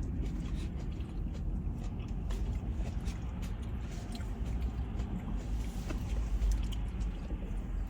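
A person chewing and biting food close to the microphone, with many small scattered mouth clicks over a steady low hum.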